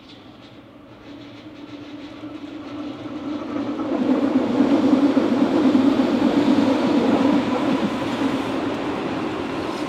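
Two Berlin U-Bahn small-profile trains passing close by on both tracks, wheels running on the rails. The sound grows from about a second in, is loudest around the middle, then eases off slightly.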